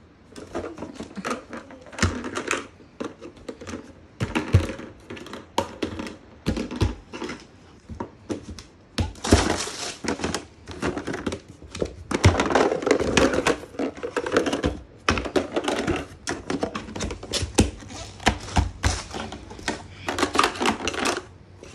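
Hollow plastic parts of a children's table-and-chair set knocking and clattering against each other as they are lifted out of a cardboard box, with rustling of the box and packing.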